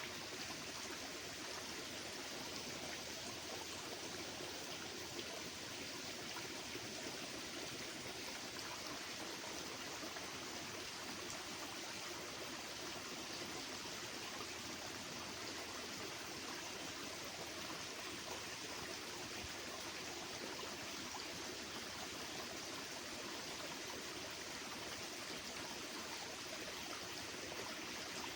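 Steady rushing of flowing water, even and unchanging throughout.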